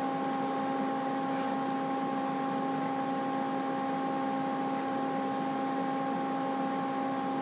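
Steady hiss with a constant hum of several evenly spaced tones, unchanging throughout: the background noise of the voice-over recording between spoken lines.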